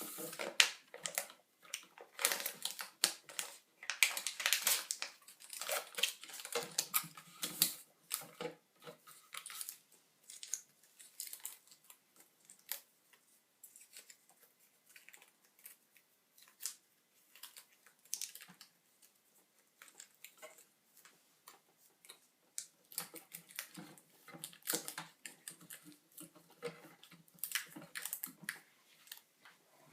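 A sheet of paper being handled and pressed into place inside a computer, giving irregular rustling and crinkling with small clicks and taps. It is busiest for the first several seconds and again near the end, with a sparser stretch in between.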